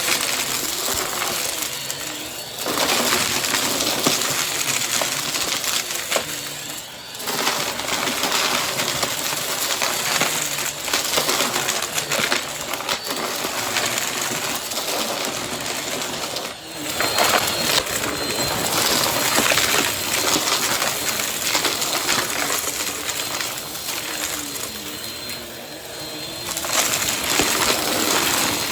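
Vacuum cleaner running as it is pushed quickly back and forth over the floor, a steady rushing noise with a faint high motor whine and scattered small clicks and rattles. The sound dips briefly about four times.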